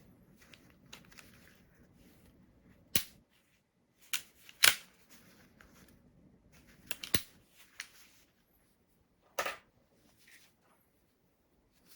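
Marushin model-gun Enfield No.2 Mk I top-break revolver being handled for loading: a series of sharp metallic clicks and clacks, the loudest about four and a half seconds in, with small handling rattles between.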